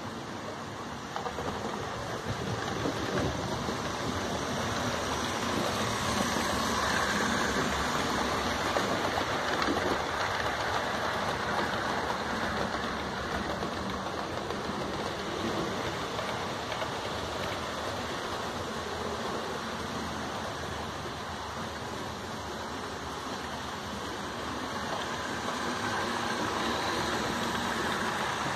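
OO-gauge model trains running on the layout's track, a steady rumble of wheels on rails and motor. It grows louder a few seconds in and again near the end as trains pass close by.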